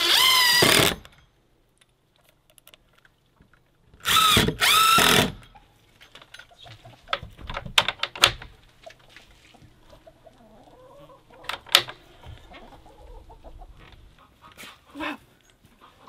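Cordless drill driving screws into wood in three short runs, one at the start and two back to back about four seconds in, each a whine that wavers in pitch as the screw bites. Between the runs come a few sharp clicks.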